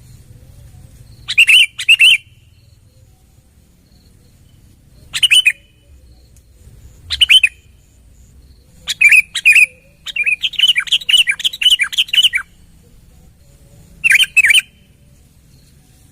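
A bird calling in short, loud chirps that come in ones and twos with gaps of a few seconds between them, plus one fast run of about ten chirps in a row near the middle.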